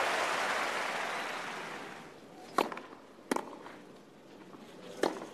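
Stadium crowd applause dying away over the first two seconds, then three sharp knocks of a tennis ball, about two and a half, three and a third and five seconds in.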